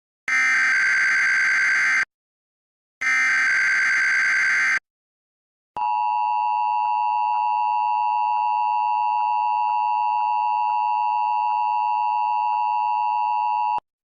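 Emergency Alert System SAME header: two harsh bursts of digital data tones, each under two seconds, with silence between. After a short gap comes the EAS two-tone attention signal, a steady dual tone held about eight seconds that cuts off abruptly. Together they open a Required Monthly Test alert.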